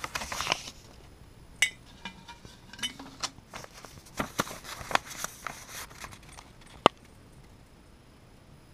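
Paper notes rustling as they are unfolded and handled, with a scatter of sharp clicks and clinks from a glass jar. One ringing clink comes about a second and a half in and the sharpest click near seven seconds.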